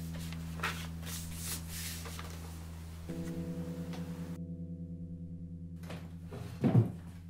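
Film score: a held low musical tone with overtones that starts pulsing about three seconds in. Over it, paper rustling as sheets are handled in the first seconds, and a single dull thump near the end.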